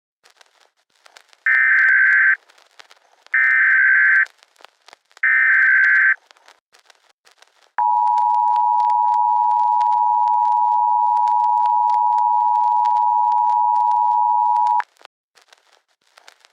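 US Emergency Alert System broadcast tones: three bursts of buzzing digital header data (SAME header), each about a second long and about a second apart, then the two-tone attention signal, a steady dual-pitch tone held for about seven seconds that cuts off sharply. Faint static crackle runs underneath.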